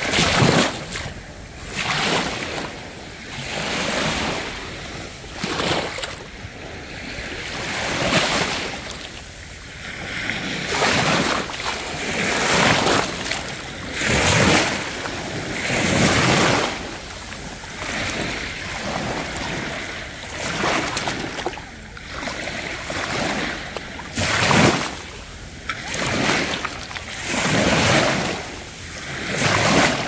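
Sea waves breaking and washing in, a rush of surf that swells and fades every couple of seconds.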